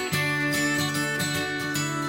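Background music: acoustic guitar strumming with a steady beat.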